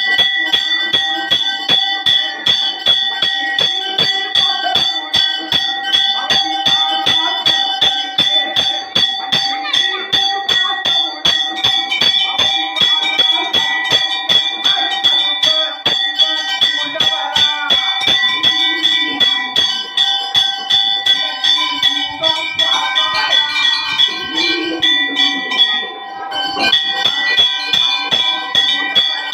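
Metal temple bell rung steadily, about three strikes a second, its ringing tones carrying on between strikes; the strikes pause briefly near the end.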